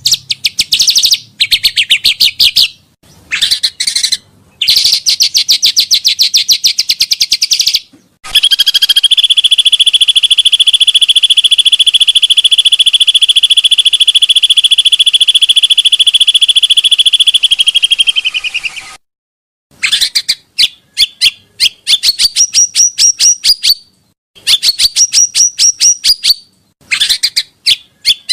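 Loud song of a pancawarna bird: fast trills of sharp high chips, a long steady buzzing trill lasting about ten seconds in the middle, then repeated rising chirps in short phrases.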